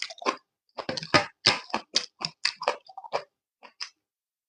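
Close-miked chewing of instant black-bean noodles with green onion kimchi: a quick run of short smacking mouth sounds, several a second, that thins out near the end.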